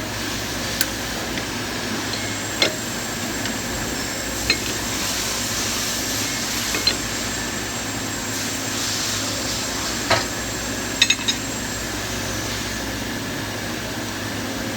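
Scattered small metal clicks and clinks of hand tools and parts being handled while taking apart a pneumatic diaphragm valve actuator, over a steady background hiss and hum. Three clicks come in quick succession about eleven seconds in.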